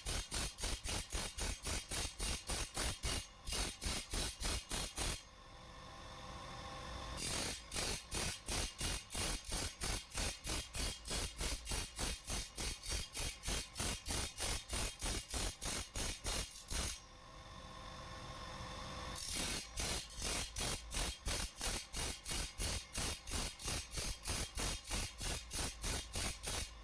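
Metal chaff cutter blade being sharpened and toothed: quick, even rasping strokes, about three a second. They pause twice for about two seconds while a steadier sound swells.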